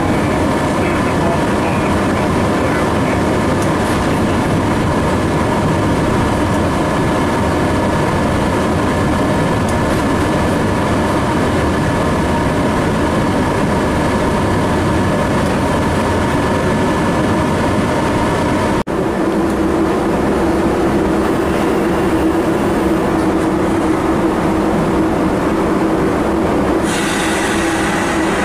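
Inside the cab of a 1948 Swedish class Hg electric locomotive under way: the loud, steady drone of its noisy cooling fans mixed with running noise from the wheels and track, with a steady whine through it. About two-thirds of the way through the sound breaks off for an instant and comes back with a lower hum stronger, and a hiss joins in over the last second or so.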